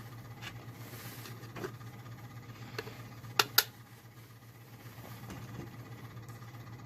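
Faint clicks and taps of small screws and nuts being handled and fitted to a horn's cage, with two sharper clicks close together around the middle. A steady low hum runs underneath.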